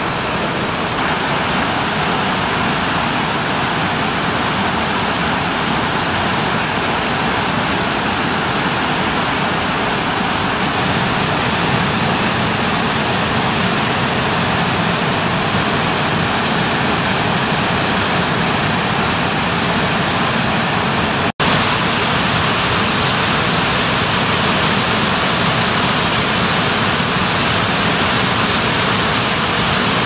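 Steady rush of white water: a mountain stream cascading between boulders and a waterfall pouring into a plunge pool. It drops out for an instant about two-thirds of the way through.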